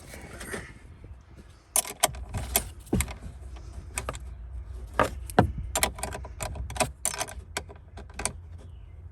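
Irregular metallic clicks and clinks of a 10mm socket wrench with extensions working on the battery's fittings, in quick clusters about two seconds in and again from about five seconds on.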